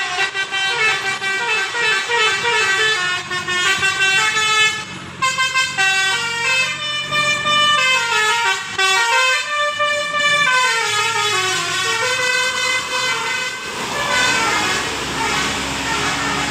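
Bus telolet 'basuri' musical horn playing a fast, chiming melody of quickly stepping notes, several sounding together, with a brief break about five seconds in. Near the end the tune gives way to a slowly rising wail.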